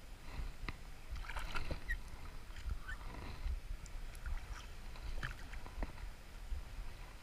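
Shallow river water splashing and sloshing in scattered strokes as someone moves an object through it, with a few small clicks among the splashes.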